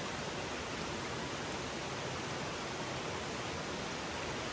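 Steady rush of stream water: an even hiss with no breaks.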